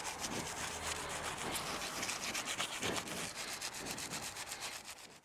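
Quick, rhythmic scrubbing strokes as brass Stolperstein memorial plaques are cleaned by hand, fading out at the very end.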